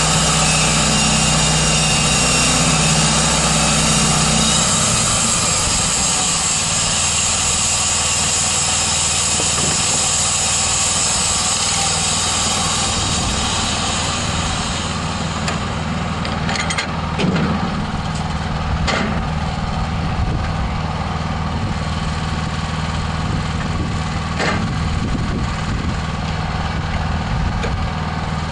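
Band sawmill running on its 13 HP Honda engine, a steady engine note whose low tone shifts about four seconds in. A strong high hiss over the engine fades about halfway through, and a few sharp knocks follow near the end.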